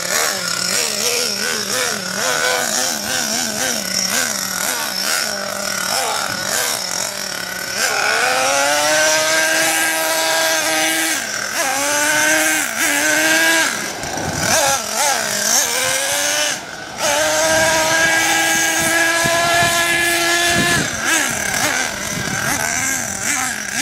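Radio-controlled monster truck's motor revving as it drives, its pitch climbing about a third of the way in, dipping and rising again several times, then holding high and steady for a few seconds before falling away near the end.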